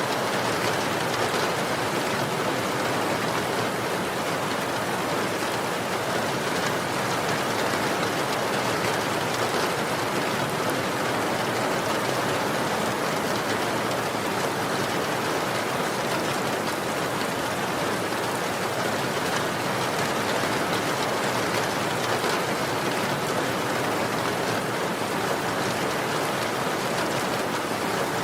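Steady rain falling on a surface, an even hiss with fine drop patter and no change in intensity.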